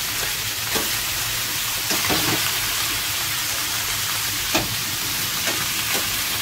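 Galunggong (round scad) sizzling as it fries in oil in a pan, a steady high hiss. A few light clicks of metal tongs against the pan as the fish are turned.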